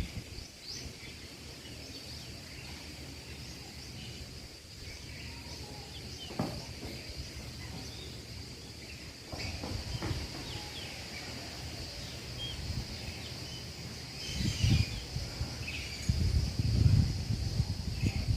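Outdoor ambience: a steady high insect drone with scattered bird chirps, and a few low thumps and rustles that are loudest in the last few seconds.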